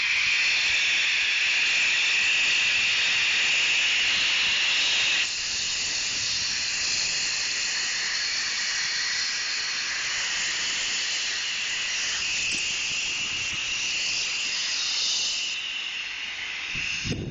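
Steady loud hiss of escaping steam, dropping in level suddenly about five seconds in and again shortly before the end.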